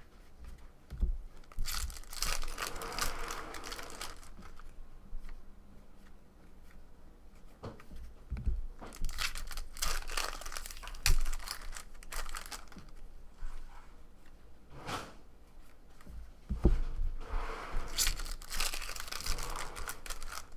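Trading card pack wrappers being torn open and crinkled by hand, in three bouts of tearing and crackling.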